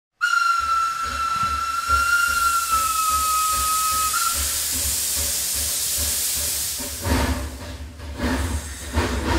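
Steam locomotive whistle blowing one long steady note over a loud hiss of steam. The whistle stops about four seconds in and the hiss dies away, and rhythmic chuffing with a low rumble starts near the end.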